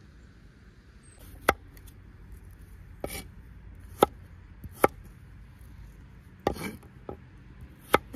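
Chopping: about seven sharp strikes at uneven intervals, a couple of them trailing into a short scrape.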